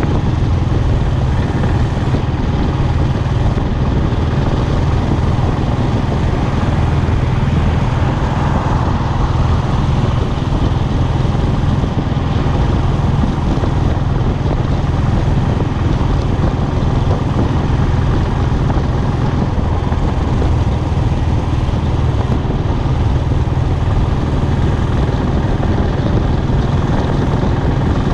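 Royal Enfield Classic's single-cylinder engine running at a steady cruising speed, its exhaust note held even with no revving, over a steady rush of wind.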